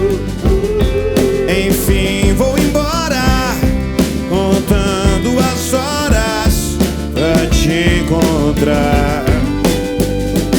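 Live rock band playing a song, with a vocal line over the full band.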